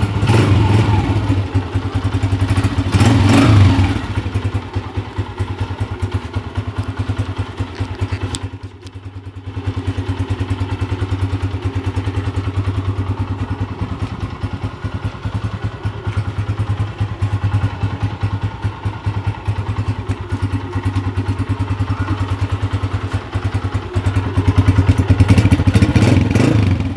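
Honda CG 125's single-cylinder four-stroke engine running with a steady, rapid beat. The throttle is opened twice, in the first few seconds and again near the end, and the engine note rises each time.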